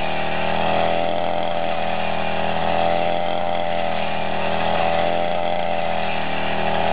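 Small engine of a shoulder-slung crop cutter running steadily at high speed as its blade mows standing grain, its pitch rising and falling slightly with the load.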